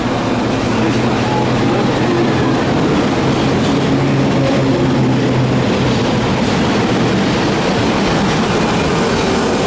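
Midosuji Line subway train running into the station alongside the platform. Its wheels and motors make a steady loud rumble with a low hum, and a whining motor tone shifts in pitch near the end.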